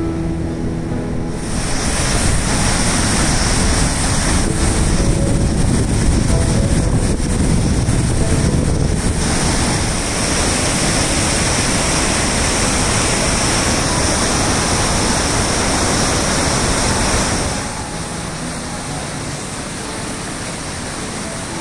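Water rushing over a dam waterfall: a loud, steady rush of noise that swells about a second and a half in and drops back near the end.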